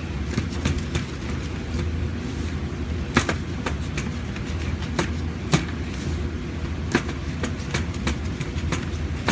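A freshly baked pizza being cut on a round metal pan: irregular sharp clicks and knocks as the cutter strikes the pan, over a steady low hum.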